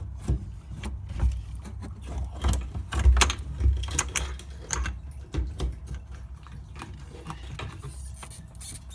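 Irregular clicks and knocks as the fuel pump assembly of a 2002 Honda Accord is worked up and out of the fuel tank by hand, parts of the assembly knocking against each other and the tank opening.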